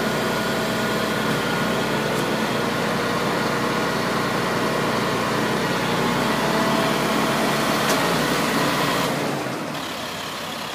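A steady engine running, with a constant drone, dropping quieter about nine seconds in.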